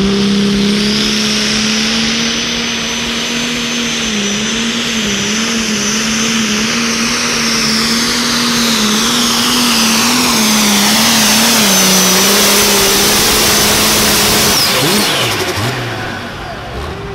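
International 1486 super stock pulling tractor's turbocharged diesel engine running flat out under load during a pull, with a high turbo whine over the engine note. About fifteen seconds in the engine comes off and the whine falls away.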